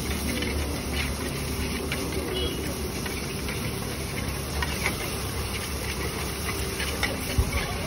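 Steel spatula scraping and clicking against a hot iron tawa as egg masala mixture is stirred and spread, under a steady sizzling hiss.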